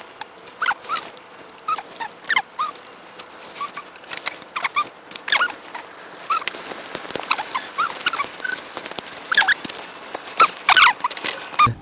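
A dog whimpering: many short, squeaky calls, some rising and some falling in pitch, at irregular intervals, with the loudest run near the end.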